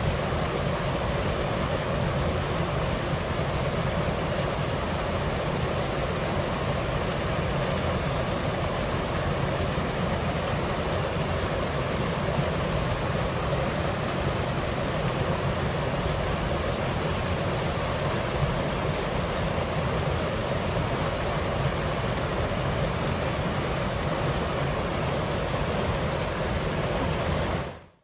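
Small mountain stream rushing over rocks in a steady, unbroken flow of water.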